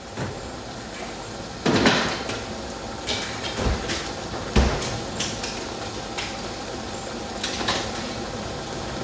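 Kitchen clatter: a string of separate knocks and bangs, like cupboard doors and dishes being handled while tidying up, the loudest about two seconds in.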